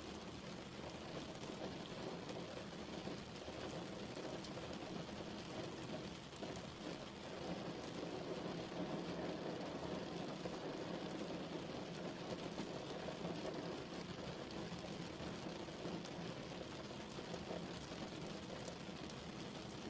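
Steady rain falling, an even continuous patter with no let-up.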